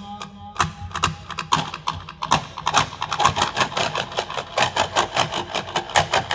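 A group of daffs, hand-held frame drums, beaten together by hand in a fast, even rhythm of sharp strokes. The strokes are sparse at first and grow denser after about two seconds.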